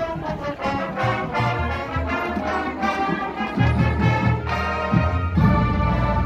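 Marching band brass section playing together with horns raised, moving through sustained chords over low brass notes.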